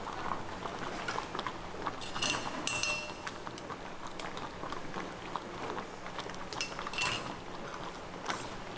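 Spicy rice-cake sauce bubbling on an iron griddle, with metal utensils clinking and scraping now and then. Short, bright scrapes come about two seconds in and again about seven seconds in.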